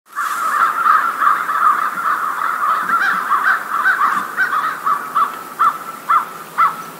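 A chorus of many short, repeated animal calls, dense and overlapping at first, thinning out to separate calls about twice a second near the end.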